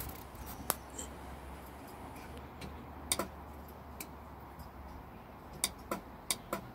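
1968 Dodge Charger's starter circuit clicking as the key is turned: a few sharp single clicks with several close together near the end, and the engine never cranks. The owner traces the clicking to a faulty starter solenoid.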